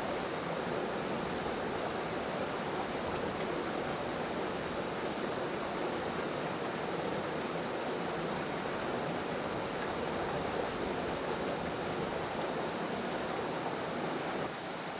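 Steady rushing of a mountain stream, an even wash of water noise that drops a little near the end.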